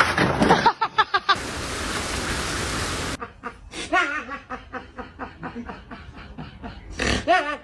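A short burst of even, hissing noise lasting about two seconds, then a person laughing in short repeated bursts.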